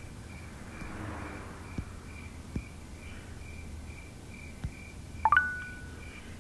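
Crickets chirping steadily, about two chirps a second, over a low hum, with a few faint ticks. About five seconds in comes a short bright chime, the phone's match notification.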